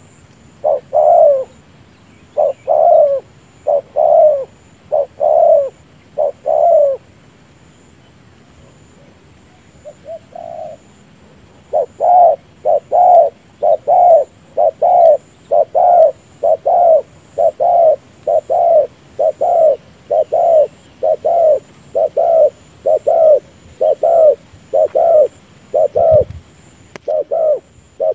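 Spotted dove's bowing display coo: short coos repeated about twice a second. The run breaks off for a few seconds partway through, then resumes steady and regular. A low thump near the end.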